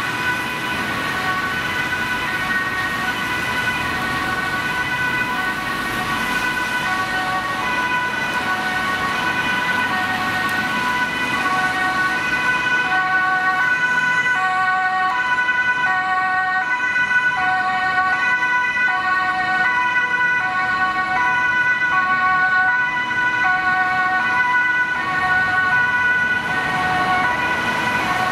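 Fire engine's two-tone siren alternating between a high and a low note, about a cycle and a half each second and a half, over road traffic noise; it gets a little louder from about halfway through.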